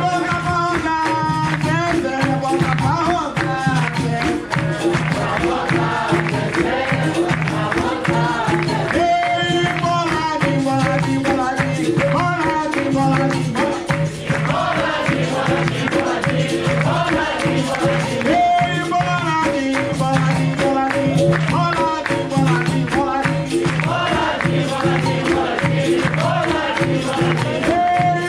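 Music: singing over a steady percussion beat.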